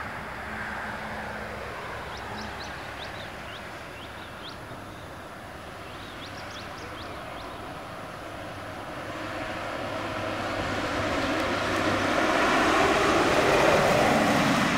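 Intercity coach approaching along a highway and passing close by. Its engine and tyre noise grow steadily louder over the last several seconds.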